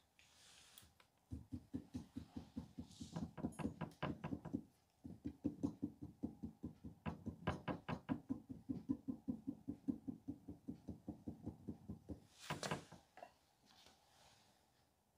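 Clay sculpture's head being tapped to pack and shape the clay: quick, even, dull knocks, about five a second, in two long runs with a short break. A single sharper clatter comes near the end.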